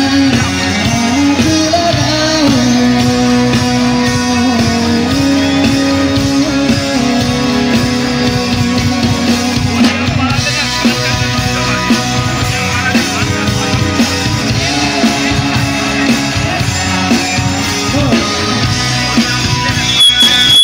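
Live rock band playing through a PA: electric guitars, keyboard and drums with a male singer's voice.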